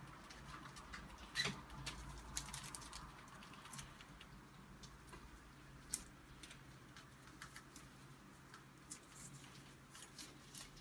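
Faint, scattered clicks and taps from pet rats climbing the wire cage bars and nibbling at a hanging chain of cucumber and pepper slices, with a sharper click about a second and a half in.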